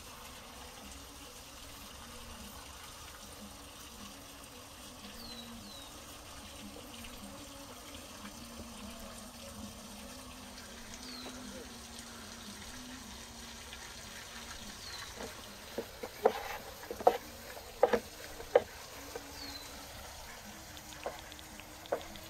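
Steady faint trickle of running water, with short high descending bird chirps now and then. From about two-thirds in comes a series of sharp wooden knocks as dough is worked and rolled with a wooden rolling pin on a wooden board.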